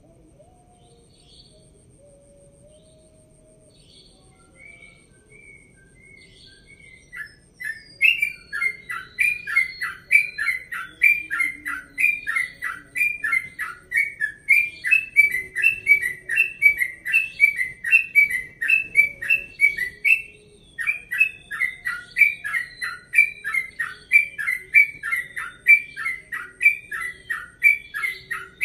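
Yellow-vented bulbul (trucukan) singing its 'ropel' song. After a few seconds of scattered soft notes, it breaks into a long, fast run of repeated chirping notes, about three a second, with a brief break about twenty seconds in.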